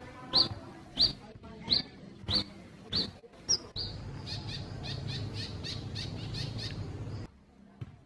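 Olive-backed sunbird singing: sharp, high chirps about every two-thirds of a second, then a quicker run of high notes about four a second. A low steady rumble underlies the quicker run and cuts off abruptly near the end.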